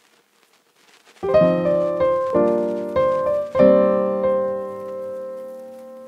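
Near silence for about a second, then background keyboard music: a few piano-like chords struck one after another, the last left to ring and slowly fade.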